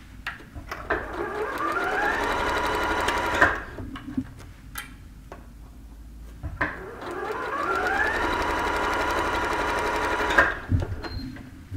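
Janome sewing machine stitching a seam in two runs, the first starting about a second in and the second about halfway through. Each run speeds up with a rising whine, holds a steady pace and then stops. A few light clicks come between the runs.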